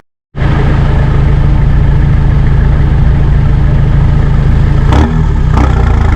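Mitsubishi 4D56 four-cylinder turbo-diesel idling steadily, running on two newly replaced glow plugs. The sound cuts in abruptly a moment in, with a couple of short clicks about five seconds in.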